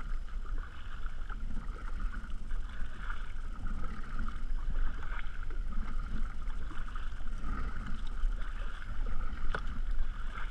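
Water lapping and slapping against a plastic kayak hull, with wind buffeting the microphone, and a sharp knock near the end.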